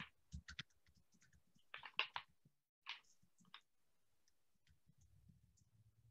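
Near silence on a video-call audio feed: a few faint clicks and short rustles, then a low steady hum that comes in about five seconds in.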